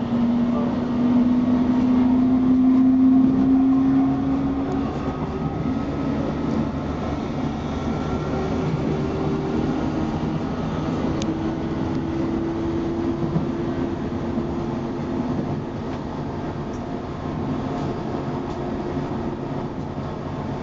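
Inside a Queensland Rail SMU electric multiple-unit train running along the line: a steady rumble of wheels on rail, with a whine that rises slowly in pitch over the first few seconds, then drops away and fades, and a fainter rising whine later.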